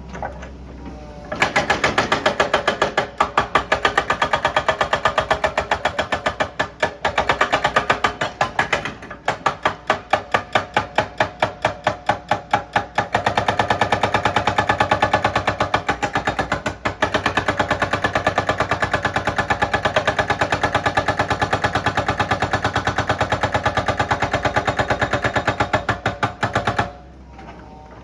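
Rapid, steady mechanical hammering from an excavator at work, about four to five blows a second, in long runs broken by a few short pauses.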